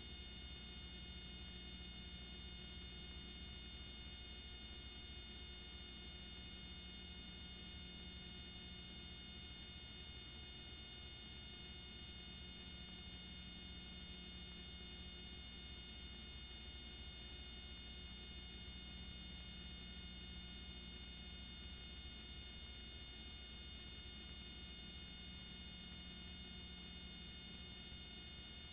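Steady electrical hum and buzz with a high whine on top, unchanging throughout. A lower hum swells and fades about every six seconds.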